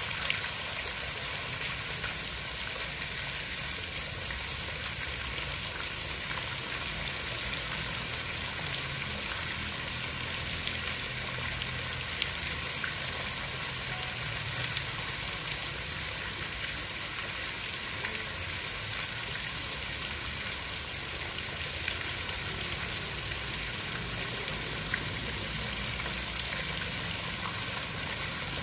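Steady water noise: a dense, even hiss with a low rumble underneath and a few faint ticks.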